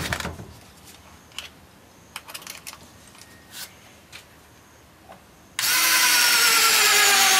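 Small cordless driver drill boring a pilot hole into a block of wood: the motor starts suddenly about two-thirds of the way through and runs steadily, its pitch dipping slightly. Before it, a few light clicks and taps from handling the tool.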